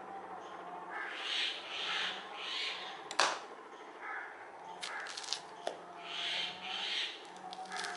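A crow cawing, three calls about a second in and two more near the end. A little after three seconds in, a sharp click as a knife is set down on a plastic cutting board, followed by crackling as orange peel is torn off by hand.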